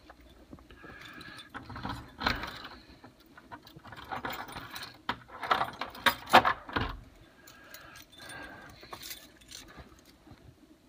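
Irregular rustling and light clinking of handling noise, busiest and loudest a little past the middle.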